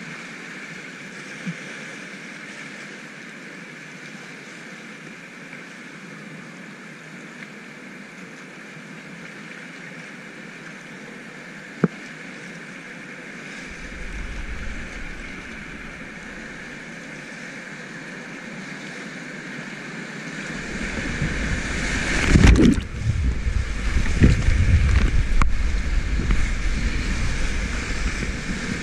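Whitewater rapids rushing and churning around a kayak, heard close up from the boat, with a single sharp knock near the middle. In the last third the water gets much louder, with heavy splashing and buffeting as the kayak runs through bigger waves.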